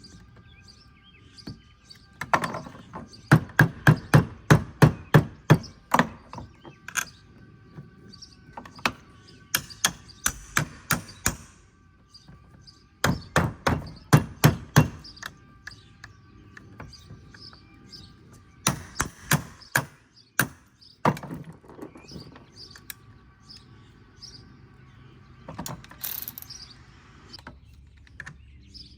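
Runs of sharp knocks, about three a second in bursts of several strokes, from hand-tool work on the toolbox's caster wheel mounts during a wheel swap.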